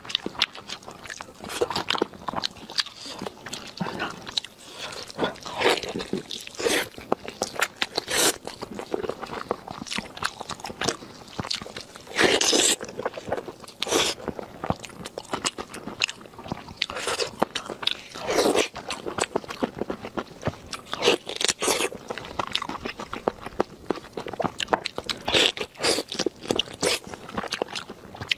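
Close-miked eating sounds: a person tearing and chewing braised lamb ribs, with wet smacking and crunchy bites at irregular intervals, the loudest about twelve and eighteen seconds in.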